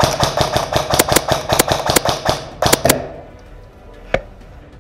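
Airsoft rifle firing a quick, uneven string of shots for about three seconds, then a single shot about a second later.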